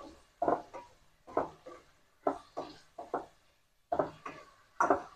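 Cooking spoon stirring chicken pieces in oil in a nonstick pan: a run of short scraping strokes against the pan, about two or three a second.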